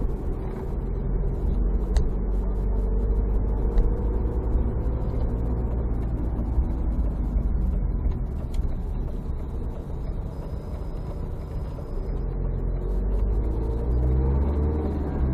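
A car driving along, with a steady low rumble of engine and road noise and an engine note that rises and falls a little.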